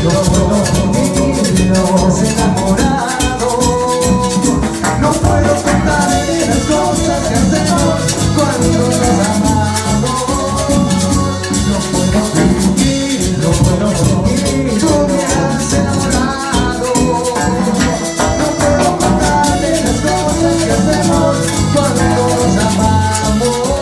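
A band playing an instrumental passage of a Latin dance song, melody lines over bass and drums, with a shaker rattling steadily in time.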